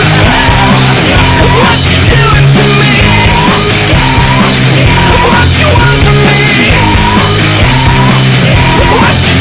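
Loud punk-rock style music with a steady driving beat.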